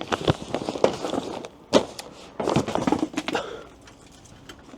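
A phone being fumbled and dropped: a run of handling knocks and clatters, one loud thunk a little under two seconds in, then more knocking before it goes quiet.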